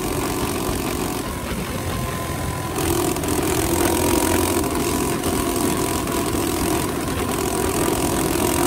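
Coleman CT200U mini bike's 196cc single-cylinder engine, running on a 30 mm PWK carburetor jetted 125/41, pulling the bike along with wind and road noise over it. The engine gets louder about three seconds in.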